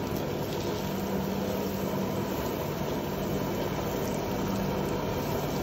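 A steady low mechanical drone with a held hum, the background running of a commercial kitchen, while a lump of butter starts to melt and bubble in a nonstick pan over a gas burner.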